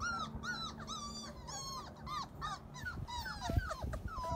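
Labrador retriever puppies whining: a run of short, high cries about two or three a second, breaking into more irregular falling whimpers about halfway through.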